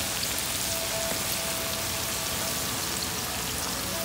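Beef patties sizzling steadily in their own rendered fat on a cast iron griddle over a medium flame, with no oil added.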